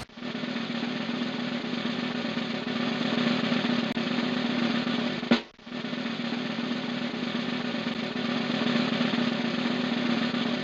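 Sustained snare drum roll as music, broken by a sharp accent about halfway through, then starting again and ending on another sharp hit.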